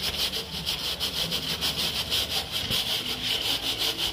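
A cloth scrubbing back and forth over the finned metal coil of a window-type air conditioner, in quick, even strokes of about four or five a second, wiping off built-up dirt.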